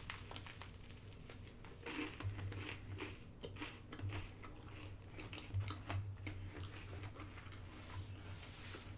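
A person chewing food close to the microphone: soft, irregular mouth clicks and smacks.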